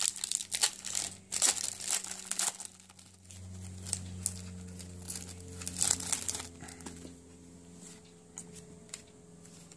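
Foil trading-card pack wrapper crinkling as it is torn open and the cards are pulled out. The crackling is densest in the first few seconds and again around the middle, over a low steady hum.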